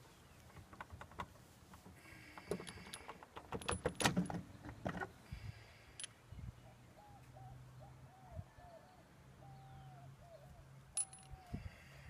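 Light metallic clinks and rattles as a Piaggio Fly scooter's rear wheel is wiggled and worked off its axle. They come in a busy cluster a few seconds in, with a few single clicks later.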